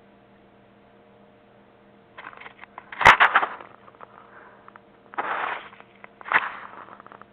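A steady hum, then irregular crackling and rustling noises with a sharp knock about three seconds in and two more short bursts of rustle near the end.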